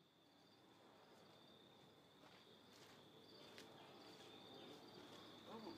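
Near silence: a faint, steady, high-pitched insect trill, with a couple of faint ticks.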